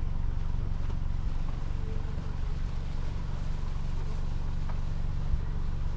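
Steady low rumble of a car's engine and road noise heard from inside the moving car.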